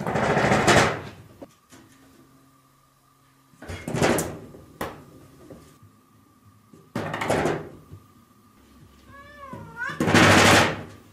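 A cat giving four loud, harsh meows about three seconds apart, with a short wavering cry just before the last.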